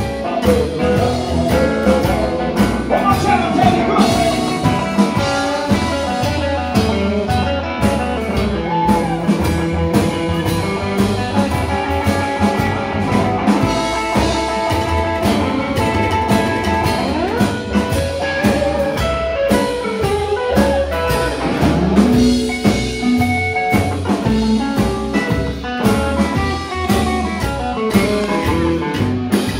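Live band playing loud: electric guitar over upright double bass and drum kit, in a blues and rock and roll style.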